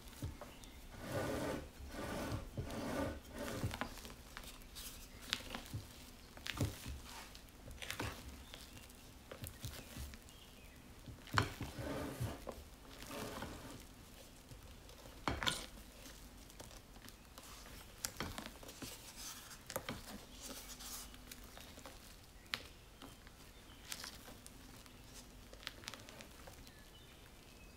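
Silicone spatula folding meringue into cake batter in a glass bowl: soft squishing of the foam, with scrapes and light knocks of the spatula against the glass at irregular intervals.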